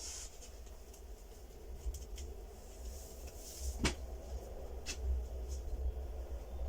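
Quiet room tone with a low rumble and a few small clicks, the sharpest about four seconds in and another about a second later.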